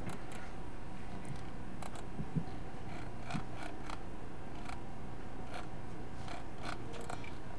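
Faint, scattered small clicks and handling noises, irregular and a few per second at most, over a steady background hum.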